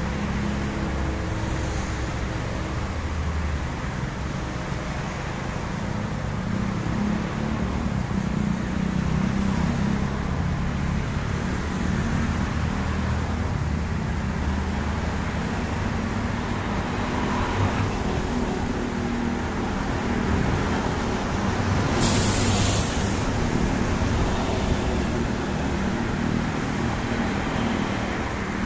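Steady traffic on a rain-wet multi-lane road: a continuous wash of car and bus engines and tyres, with a brief sharp hiss about three quarters of the way through.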